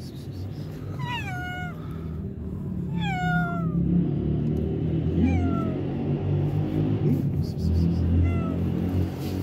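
Tabby-and-white cat meowing four times, each meow sliding down in pitch; the first two are longer and louder, the last two shorter and fainter. A steady low hum runs underneath.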